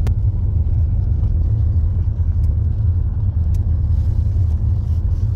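Steady low rumble of a moving car heard from inside the cabin: engine and road noise, with a brief click right at the start.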